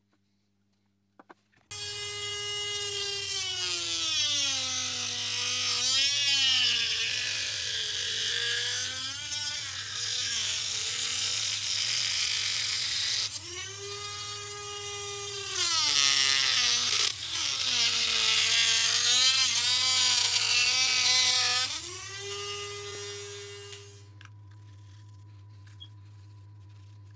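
Dremel rotary tool cutting a headlight projector shroud. Its high whine repeatedly sags and recovers in pitch as it bites into the shroud, with a brief dip about halfway. It stops near the end.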